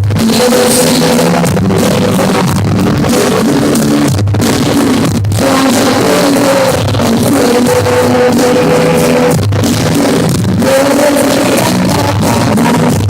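Loud rock music from a band, with electric guitar and drum kit playing together.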